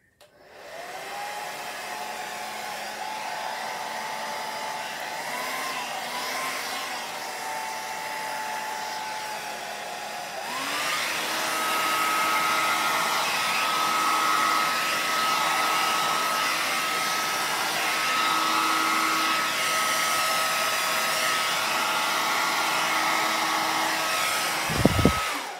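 Handheld hairdryer blowing air. Its motor whines up to speed, switches to a higher, louder setting about ten seconds in, and stops with a low knock just before the end.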